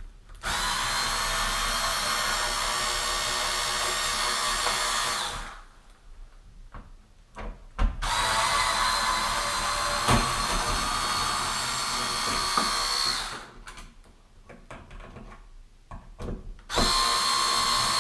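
Cordless electric screwdriver running in three steady bursts of several seconds each, a constant whine, backing out screws to remove the old switch.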